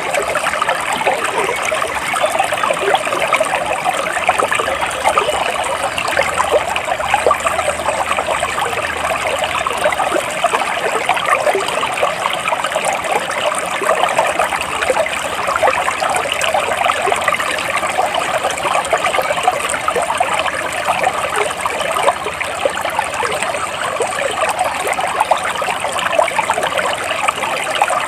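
Flowing water trickling and babbling steadily, like a small stream running over stones.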